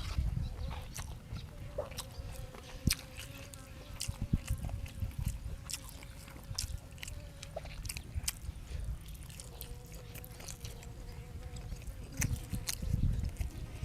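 A person chewing and biting food close to the microphone, with irregular, sharp crunchy clicks between softer mouth sounds.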